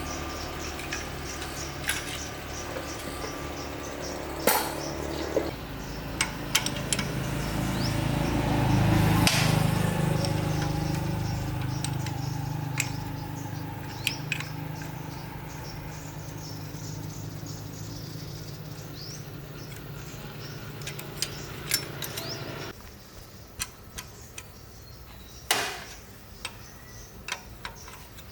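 Scattered metallic clinks and knocks over a low steady mechanical hum, which cuts off suddenly about 23 seconds in.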